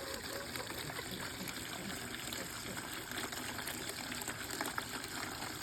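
Water running from a garden hose into a baby ducks' water container, a steady trickling splash as it fills.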